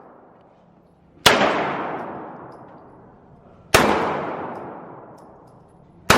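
Gunshots: three single shots about two and a half seconds apart, each a sharp crack that rings away over about two seconds, the last one right at the end.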